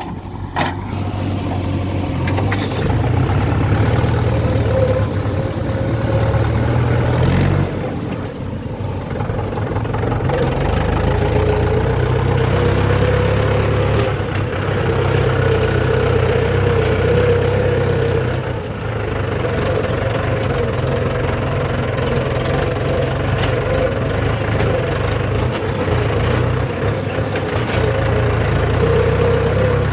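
Diesel engine of a JCB 3DX backhoe loader running while it loads, a steady low hum with a wavering whine above it, easing off briefly twice.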